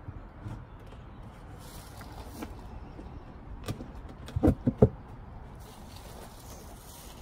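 Wooden gabled hive roof knocking against the hive box as it is settled back into place, three sharp knocks close together about four and a half seconds in, with a few fainter clicks of handling before them.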